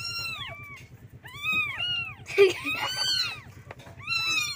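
Several young kittens meowing: high-pitched calls that rise and fall, often overlapping, in about four bouts. They are calling for their mother cat to nurse. A short, louder noise cuts in about halfway through.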